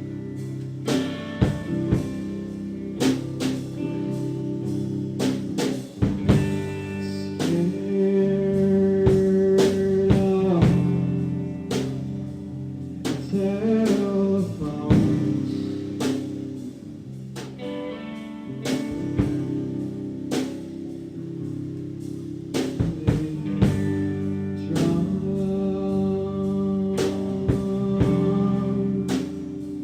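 Live rock band playing loud amplified guitars over a drum kit, with steady drum hits and a voice singing at times.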